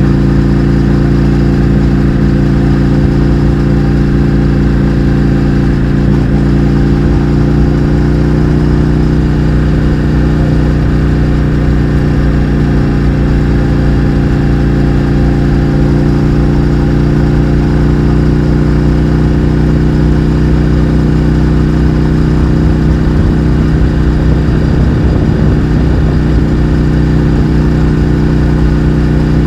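Indian FTR 1200's V-twin engine, breathing through a baffle-less Akrapovic exhaust, running at a steady speed with a constant, unchanging note.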